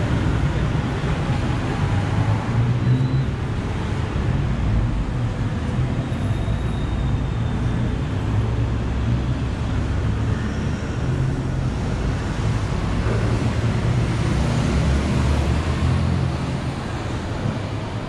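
Steady street traffic noise: a continuous low rumble of passing motor vehicles.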